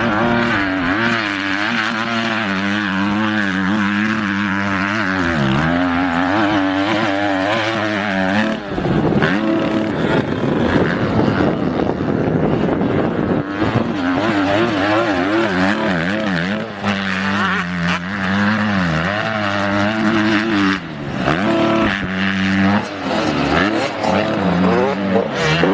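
Dirt bike engines revving on a motocross track, the pitch rising and falling again and again with throttle and gear changes.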